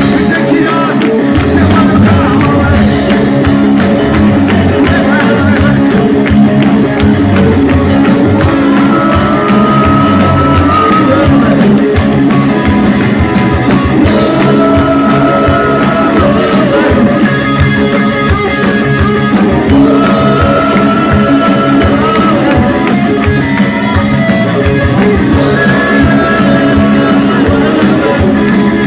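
Live rock band playing loud: guitars over a steady drum beat, with long held lead notes twice along the way.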